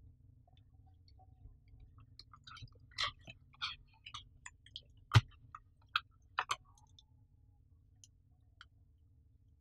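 Unboxing handling noise: a scattered run of clicks, taps and light rustles from a cardboard box and its inner packaging tray as a webcam and its cable are lifted out, the sharpest click a little past halfway. A faint steady low hum lies underneath.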